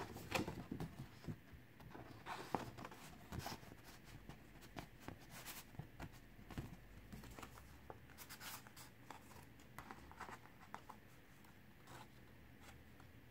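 Faint handling of stiff paper: a printed photo being slid back into the slot on a photobook page, with scattered small scrapes, rustles and taps of card against card.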